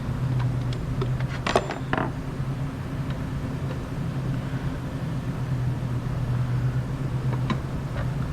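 Steady low hum of shop machinery. A few scattered metallic clicks and clinks from hand tools working at the engine's oil filter housing come about one to two seconds in, and again near the end.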